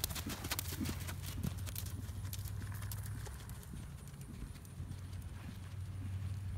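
Hoofbeats of a ridden horse moving over sand arena footing. The hoofbeats are crisp and frequent in the first second or so, then fainter over a low steady hum.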